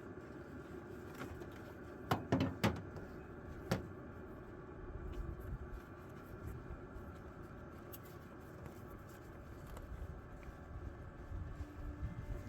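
A few sharp knocks, three close together about two seconds in and one more near four seconds, over a steady low rumble that grows uneven in the second half.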